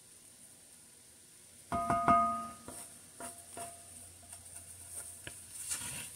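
Wooden spoon stirring a thick flour roux in an enameled cast-iron pot. About two seconds in there is a quick cluster of ringing knocks against the pot, followed by a few lighter taps.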